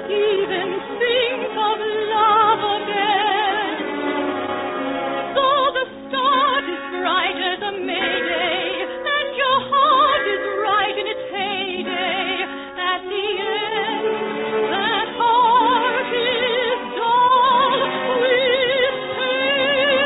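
A woman singing in operatic style with wide vibrato over an orchestra, holding long notes near the end.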